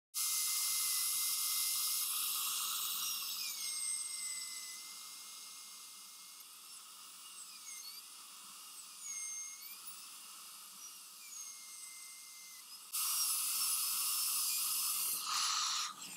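High-speed dental handpiece whining as its bur cuts guide grooves into a front tooth for a crown preparation. The high whine dips in pitch briefly several times as the bur bites into the tooth, and it dies away near the end.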